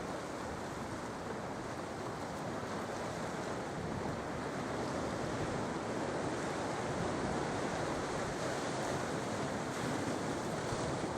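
Sea waves washing onto the shore: a steady rush of surf that swells a little partway through.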